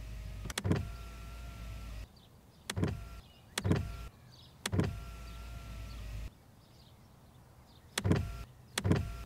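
A series of sharp knocks or thumps, single or in quick pairs, spread irregularly about a second or more apart, over a steady low hum that cuts in and out.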